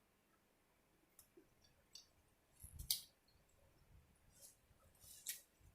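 Mostly near silence broken by a few faint, sharp clicks and cracks of snow crab leg shells being cracked and picked apart by hand, the loudest about three seconds in and another just after five seconds.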